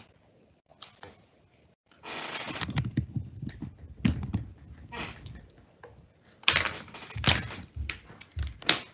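Irregular clicks and knocks with short stretches of rustling noise, like typing or handling near the microphone; they come in uneven bursts about two seconds in and again near the end.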